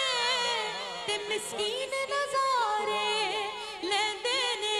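Male voice singing a devotional Urdu naat, holding drawn-out notes with wavering, ornamented pitch, with other held notes sounding underneath at the same time.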